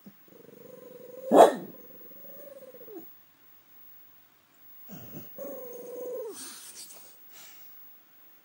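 French bulldog making strange, drawn-out strained calls at a possum outside the window, in two bouts. A single sharp bark comes about a second and a half in and is the loudest sound.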